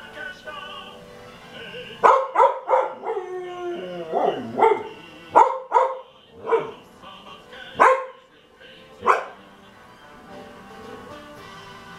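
Shetland sheepdog barking along with a TV commercial: about ten short, sharp barks starting about two seconds in, spacing out and stopping about nine seconds in. The commercial's music plays quietly underneath.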